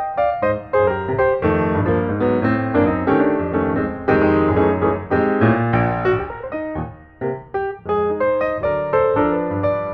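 Background piano music: a quick run of notes and chords played at a lively pace.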